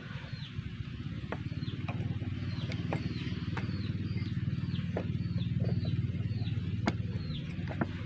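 A motor running steadily nearby, a low drone. Over it, a bird repeats a short falling chirp about twice a second, and metal parts click a few times as a chainsaw clutch is fitted by hand.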